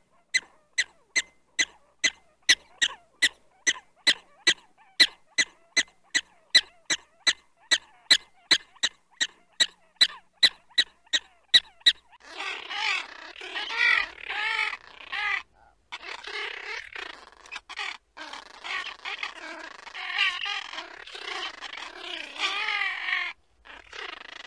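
A prairie dog giving a rapid, even series of sharp chirping barks, about two and a half a second, for roughly twelve seconds. About halfway through this gives way to gulls calling: wavering, overlapping cries with short breaks.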